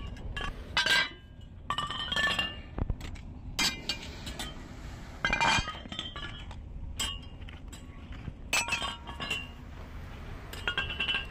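Fired bricks clinking against each other as they are handled and stacked: a dozen or so irregular sharp knocks, each with a short bright ring.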